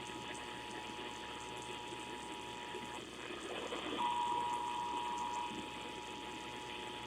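EAS attention signal, the steady two-tone alert (853 and 960 Hz), heard over hissing, crackling radio static. The tone drops out for about a second around the middle, then comes back louder for a moment before settling.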